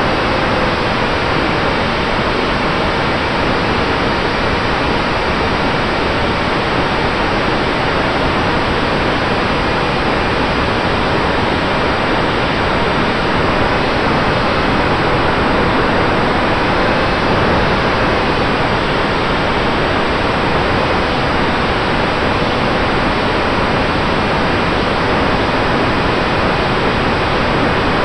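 Steady rush of airflow over the onboard camera microphone of a small Eachine Micro Skysurfer RC plane in flight, with a faint motor and propeller whine that wavers slightly in pitch under it.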